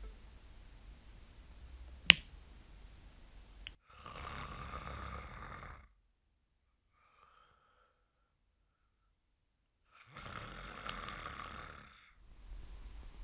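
A sharp click about two seconds in, then a man snoring: two long snores about six seconds apart, with near silence between them.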